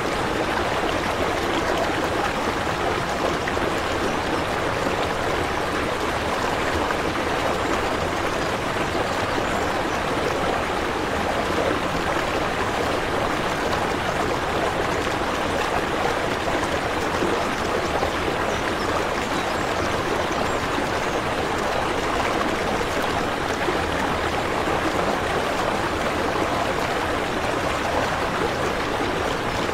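Water running and trickling steadily, an even rushing splash with no pauses or changes.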